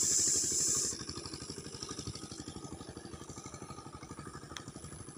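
A small engine idling steadily with a fast, even putter. A brief hiss lies over it in the first second.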